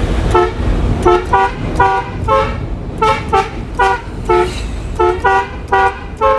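Indonesian bus's telolet horn, a multi-tone musical air horn, playing rapid runs of short notes that step up and down in pitch, over a low rumble.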